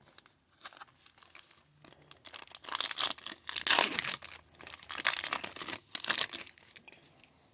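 Foil trading-card pack wrapper being torn open and crinkled. The crackling builds from about two seconds in, is loudest in the middle and dies away near the end.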